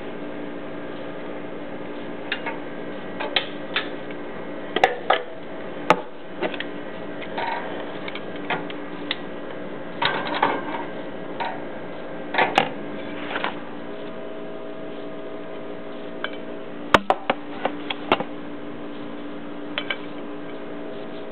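Scattered clicks and light metal clatter of a small baking tray and oven rack being handled, over a steady hum.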